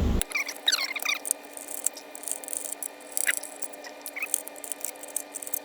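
Screws being worked out of a laptop's metal memory shield with a small screwdriver: scattered light clicks and ticks of the tool and screws, with a brief squeak in the first second.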